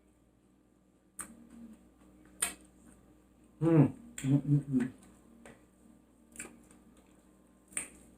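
Close-up mouth sounds of eating: sharp lip smacks and mouth clicks about a second in, at two and a half seconds, and twice more later, with a short hummed "mm" of enjoyment near the middle.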